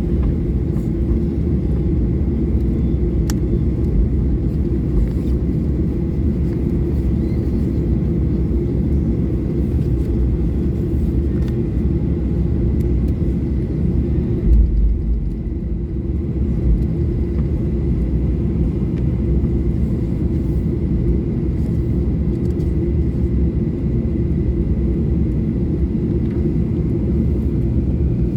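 Steady low rumble inside the cabin of a Boeing 737-800 on the ground, its CFM56-7B engines running at low power, with a faint steady whine. A single heavy thump about halfway through.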